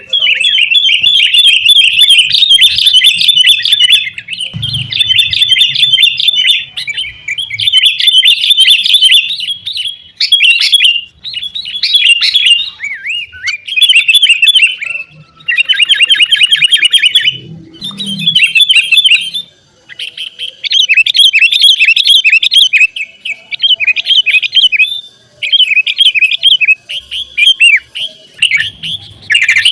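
Sooty-headed bulbuls (kutilang) calling busily: loud, rapid chattering phrases follow one another almost without pause, with a short break about two-thirds of the way through.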